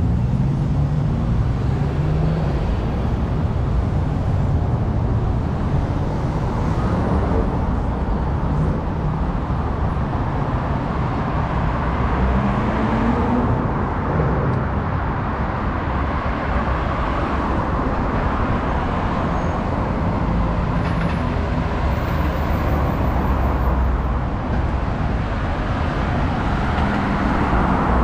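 Steady motor traffic on a busy city street, a continuous mix of engine rumble and tyre noise from passing cars.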